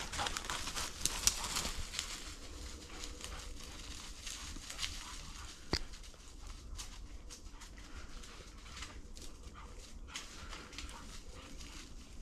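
Footsteps rustling and crackling through dry bracken and woodland undergrowth, with scattered snaps of stems. There is one sharper crack just before six seconds in.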